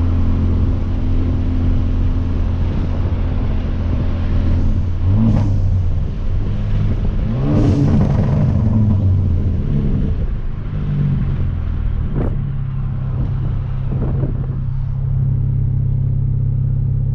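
Hyundai Veloster Turbo's 1.6-litre turbocharged four-cylinder with a loud aftermarket exhaust, heard from inside the car: a steady drone, then revs rising and falling through the middle, one sharp crack about three-quarters of the way through, and a steady, lower drone near the end.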